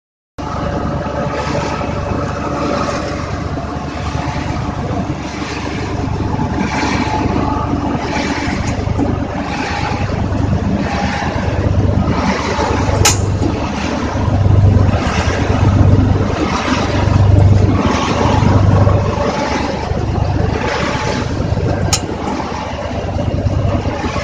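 Pin mill pulverizer running under load, grinding green plant material into powder: a loud steady mechanical whirr with a low throb that pulses roughly once a second. Two sharp clicks, about halfway through and near the end.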